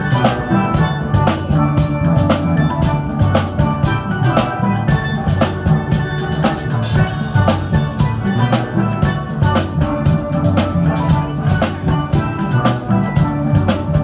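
A steel band playing: steel pans striking quick, ringing melodic notes over deep bass pan notes, with drums keeping a steady beat.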